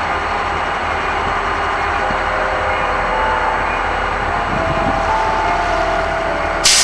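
Diesel locomotives idling: a steady mechanical rumble with faint steady tones that shift in pitch, and a sudden loud burst of hiss near the end.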